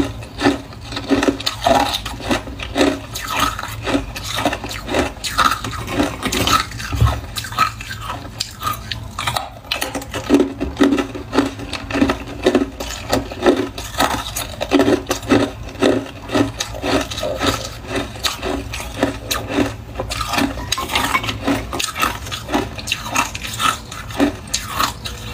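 Frozen cola ice discs being bitten and chewed, a long run of short, irregular crunches, a few each second.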